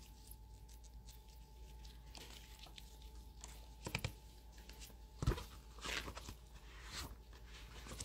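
Quiet room tone with a faint steady hum, broken by a few soft, short rustles and taps, the clearest about four and five seconds in.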